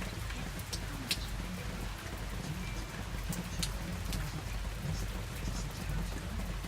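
Rain falling steadily, a continuous hiss scattered with sharp individual drop ticks, over a steady low rumble.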